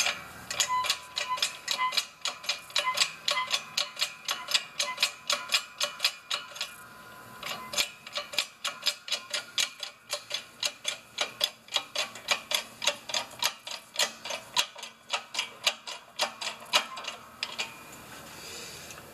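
Hydraulic bottle-jack shop press being pumped to push a rubber bushing into a lower control arm: a quick, even run of sharp metallic clicks, about four a second. The clicking breaks off briefly partway through and stops near the end.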